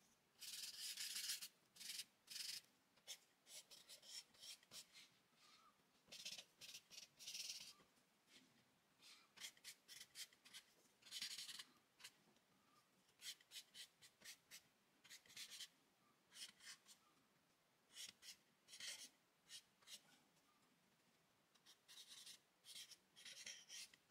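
Charcoal stick scratching across drawing paper in quick, short strokes. The strokes come in bunches of several at a time, with brief pauses between the bunches.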